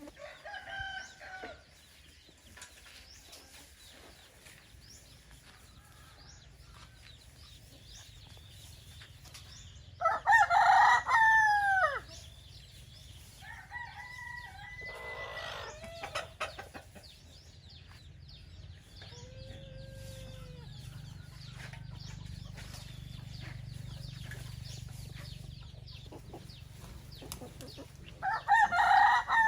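Roosters crowing: a loud crow about ten seconds in and another starting near the end, with fainter crows in between and around them, and scattered clucking.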